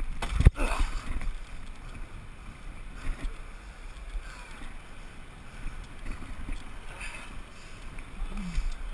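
Whitewater rushing around a raft, with wind rumbling on the microphone and one sharp knock about half a second in.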